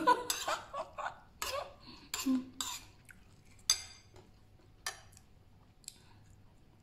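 Metal spoon clinking and scraping against ceramic bowls as food is dished up, a string of short clinks with the loudest, ringing one about three and a half seconds in.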